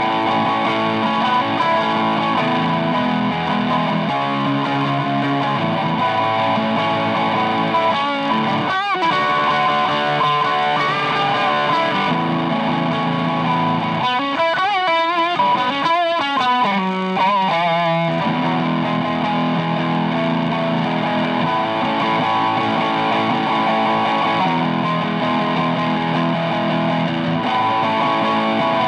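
Electric guitar played through a DOD Juice Box FX51, a Tube Screamer-style overdrive pedal: held overdriven chords that change every few seconds, with a passage of bent, wavering notes about halfway through.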